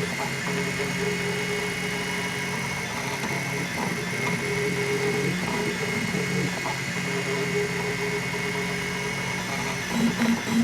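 M3D Micro 3D printer printing: its stepper motors whine in steady low tones that change pitch and switch on and off as the print head changes moves, turning into a quick pulsing of about five beats a second near the end.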